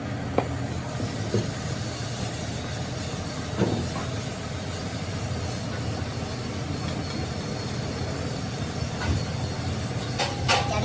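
Diesel engine running steadily with an even low rumble, a few short knocks on top and a brief clatter near the end.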